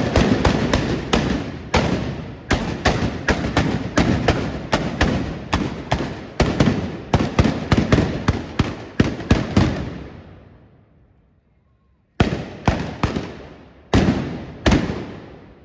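Trabucs (blunderbusses loaded with black powder only) fired in a salvo: a dense, irregular string of loud bangs for about ten seconds that thins and fades out. After a short pause, about five more single shots follow.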